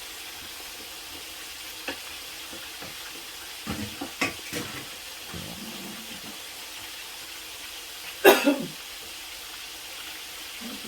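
Hot oil sizzling steadily in a frying pan, with a few light knocks around two and four seconds in and one brief loud burst about eight seconds in.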